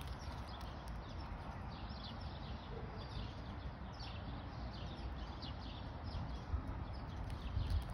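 Large dog chewing a foil-wrapped chocolate bar: a long run of small, irregular crackling crunches and wrapper crinkles over a steady low rumble.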